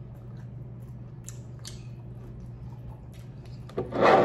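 Close-miked eating: chewing and biting into a barbecue rib, with soft wet mouth clicks over a steady low hum. Near the end a brief, much louder noise comes as the hot-sauce bottle is lifted off the table.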